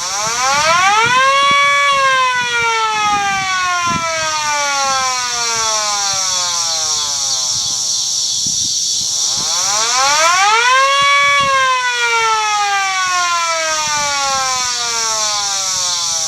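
Modified Federal Signal 2T22 mechanical siren sounding a wail. It winds up in pitch over about two seconds, then winds slowly down for about seven seconds, and near the middle it winds up again and falls once more.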